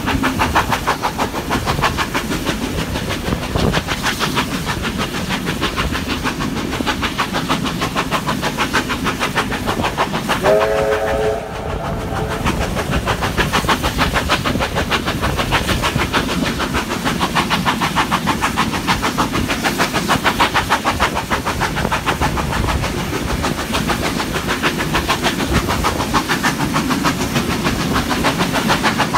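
Steam train running along at speed with a steady, rapid beat, heard from one of its carriages. About ten seconds in, the locomotive's steam whistle sounds once: a chord of several notes that slides up at the start and then holds for about a second and a half.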